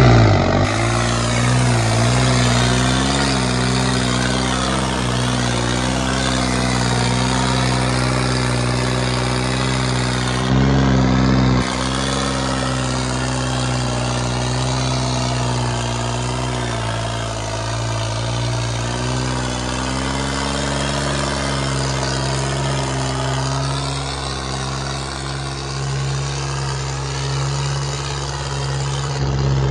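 Diesel tractor engine running hard and steadily, its pitch wavering slowly as the revs and load shift. It is briefly louder about ten seconds in.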